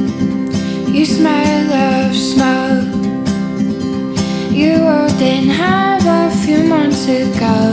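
Song with a strummed acoustic guitar and a woman singing, her voice coming in about a second in and going on in two phrases over the guitar.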